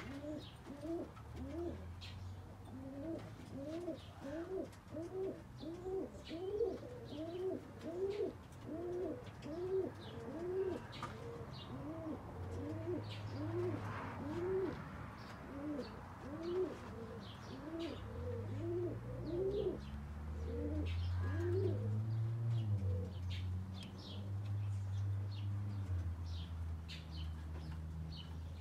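A pigeon cooing in a long, even run of arched notes, about two a second, that stops about three quarters of the way through. Small birds chirp faintly, and a low steady rumble grows stronger in the second half.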